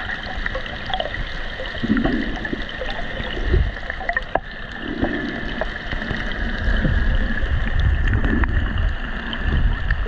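Muffled underwater sound from a submerged camera: water rushing and swirling in low surges every second or two, with scattered faint clicks.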